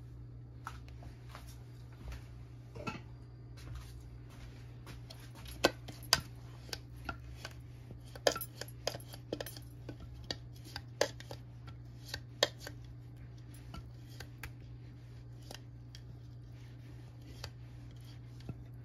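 Irregular clicks and scrapes of a silicone spatula against a small glass jar as seasoning paste is scraped out, over a steady low hum.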